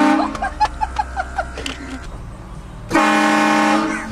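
Vehicle-mounted air train horn sounding a chord of several notes in two blasts. The first cuts off just after the start, and the second, about a second long, comes about three seconds in.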